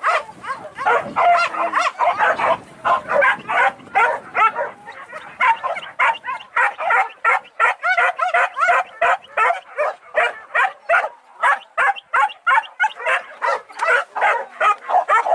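A pack of hunting dogs barking and yelping without pause, several barks a second overlapping.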